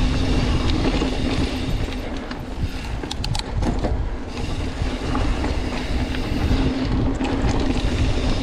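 Mountain bike rolling fast over a dirt trail: wind buffeting the mount microphone over the tyre and frame rattle, with a few sharp clicks about three seconds in.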